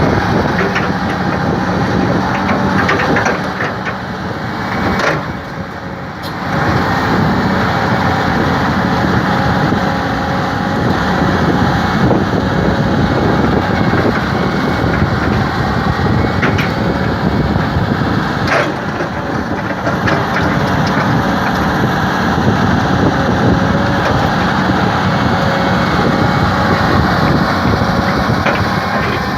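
Komatsu PC-series hydraulic excavator's diesel engine running steadily, with a brief drop in level about five seconds in and a few sharp knocks here and there.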